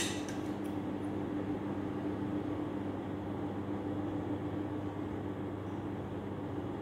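Steady low hum with an even hiss from a running kitchen appliance, with a short click right at the start.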